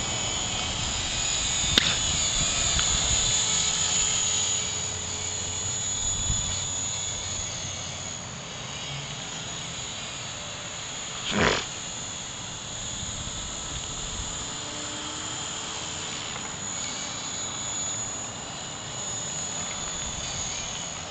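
Walkera V400D02 electric RC helicopter flying, a steady high-pitched whine of its motor and rotor, with wind rumbling on the microphone. A brief loud thump about eleven and a half seconds in.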